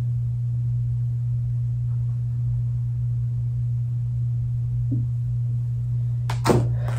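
A steady low electrical hum. A brief clatter of clicks comes near the end.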